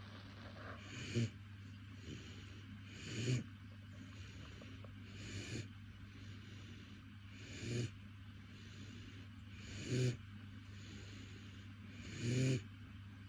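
Doberman puppy snoring in deep sleep: six snores about two seconds apart, each swelling to a brief loud peak.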